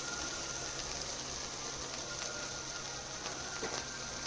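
Chicken sizzling steadily in a hot pan, a continuous frying hiss with a few faint crackles.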